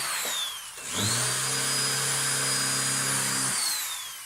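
Cordless drill driving screws into wood. Its motor whine falls off right at the start, spins up again about a second in, runs steadily for a couple of seconds, then winds down with a falling pitch near the end.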